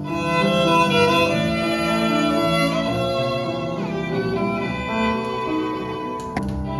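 Violin-led music with strings underneath, played back through a Canary moving-coil phono cartridge. There is a brief sharp click about six seconds in.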